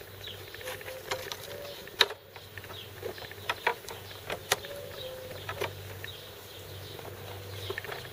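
Irregular light clicks and knocks of a folding kayak's wooden frame parts and metal clips being handled and fitted together by hand, the sharpest about two seconds in, over a faint steady hum.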